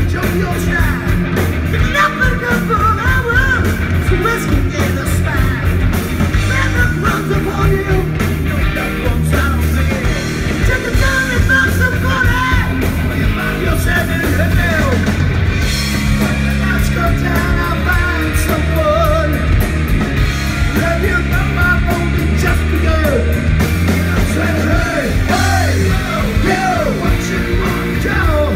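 Live rock band playing loud: a singer over electric guitars, bass and a drum kit.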